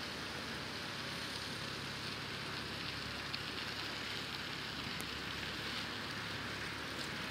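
Aquila A211's Rotax 912 engine and propeller at full takeoff power on the takeoff roll of a touch-and-go, heard from far off as a steady drone under a hiss.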